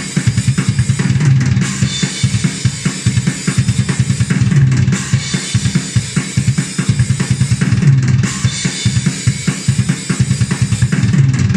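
Sampled acoustic drum kit from the Ugritone KVLT Drums II plugin, its 'Norwegian Chicken Shack' preset, playing a fast, unbroken metal/hardcore pattern at 145 BPM. Kick drum, snare and cymbals are hit densely throughout.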